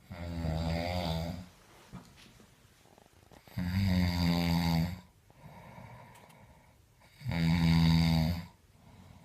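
Heavy snoring: three loud, buzzing snores, each a little over a second long, about three and a half seconds apart, with a faint breath between the second and third.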